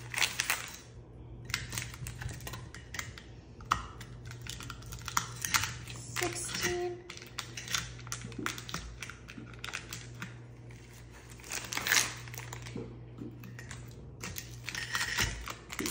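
Plastic freeze-pop tubes crinkling and rustling as they are pulled one by one from their packaging and pushed into an insulated pitcher, with irregular small clicks and taps throughout.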